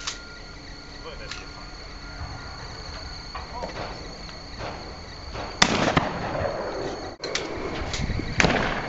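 Shotgun shots at clay targets: two loud blasts about three seconds apart, one near the middle and one near the end, after a fainter shot right at the start.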